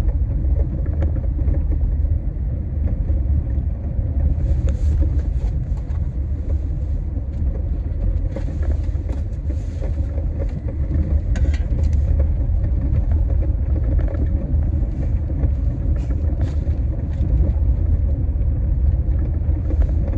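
Car driving through snow, heard from inside the cabin: a steady, loud low rumble of engine and road noise, with a few faint ticks now and then.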